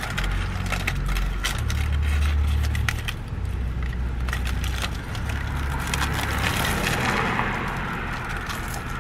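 Crusty baguette of a banh mi and its paper wrapper crackling as the sandwich is handled close to the microphone, with a crunchy bite near the end and low rumbling underneath.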